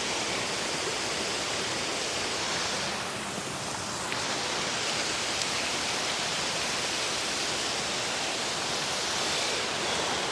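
Waterfall rushing steadily into a pool, swollen with extra water after rain, briefly a little softer about three seconds in.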